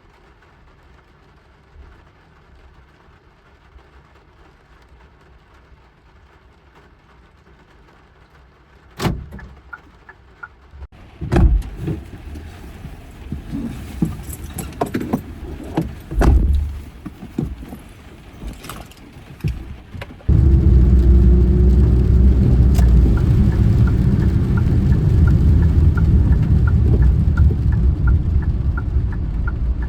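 Knocks and clatter, like a car door and keys, then about two-thirds of the way in a car engine starts suddenly and runs with a steady low rumble. A faint regular ticking runs above it, a little under two ticks a second.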